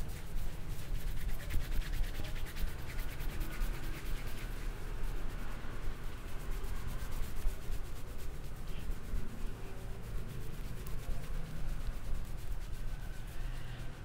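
Fingers rubbing and scratching briskly through a man's hair against the scalp in a head massage: a fast, dense rasping of hair friction.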